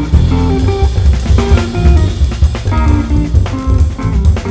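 Jazz quartet playing live: a Telecaster-style electric guitar plays quick runs of short notes over double bass and a busy drum kit.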